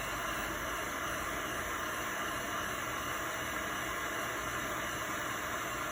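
Heat gun running, a steady rush of hot air blown over a circuit board to melt its solder before the components come loose.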